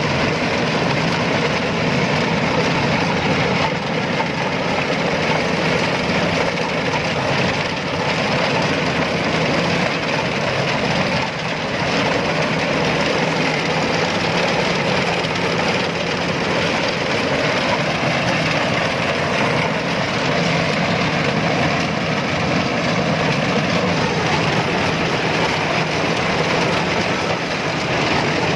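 Rice combine harvester's diesel engine running steadily.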